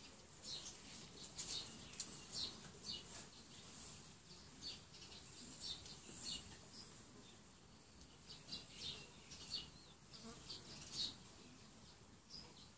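Faint, high-pitched chirping of small birds: short calls repeating irregularly, one or two a second, over a quiet background.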